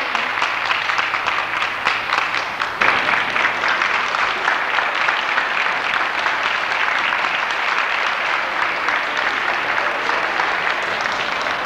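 Crowd applauding: dense, steady clapping from many hands, which grows louder about three seconds in.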